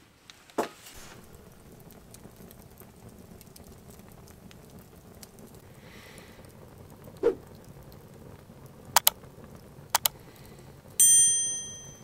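Wood campfire burning with a low steady crackle and a handful of sharp pops. Near the end a bright bell-like chime rings and fades: a subscribe-button notification sound effect.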